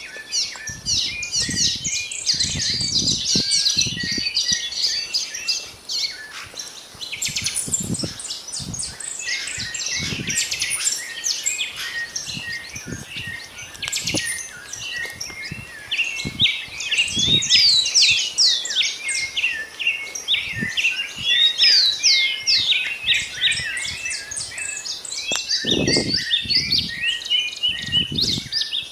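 Dawn chorus: many small birds chirping and calling at once, a dense, continuous tangle of short high chirps, with occasional low dull bumps underneath.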